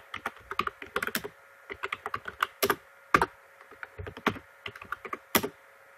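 Typing on a computer keyboard: quick irregular runs of key clicks with short pauses between, over a faint steady hum.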